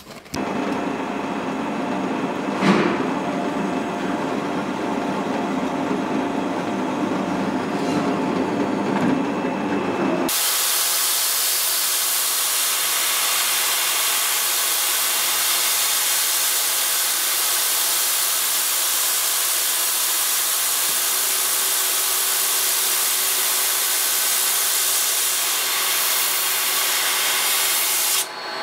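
Milling machine running, its end mill cutting into the sword-guard blank in the vise: a steady hissing machining noise that starts abruptly about ten seconds in. Before that there is a lower machine sound with a sharp knock about three seconds in.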